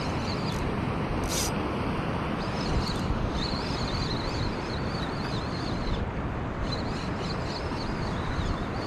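Steady wind rushing over the microphone and surf washing on the shore, with a short click about a second and a half in and a faint wavering high whine over the noise from about two and a half seconds in.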